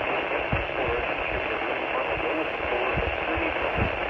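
Steady hiss of static from a weakly received radio broadcast, with scattered short low crackles and thumps, the strongest near the end.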